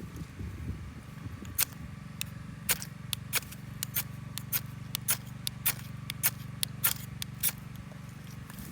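Wood fire crackling: about a dozen sharp, irregular pops and snaps over a steady low rumble.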